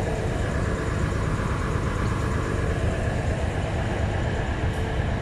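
KA Bandara airport train's engine idling at a standstill: a steady low rumble with a faint constant hum over it.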